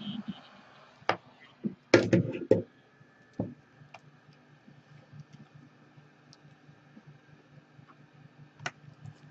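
A heat gun's fan noise stops at the start. A cluster of hard knocks and clatter follows between about one and two and a half seconds in, as the heat gun is set down and a pry tool picked up. After that there is only a low steady hum and a few faint ticks of the tool at the edge of the glass.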